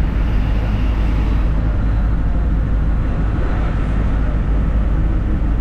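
Steady low rumble of road vehicles and traffic, with no distinct events standing out.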